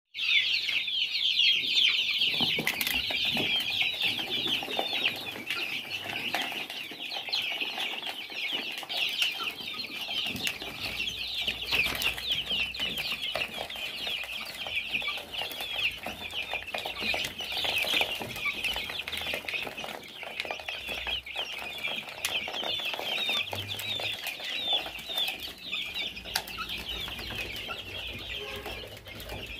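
A flock of young chicks peeping constantly, a dense chorus of many overlapping high chirps.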